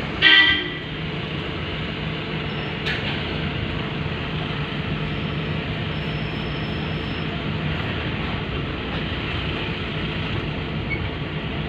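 Steady running noise of a vehicle with a constant low hum, broken right at the start by one short, loud horn honk.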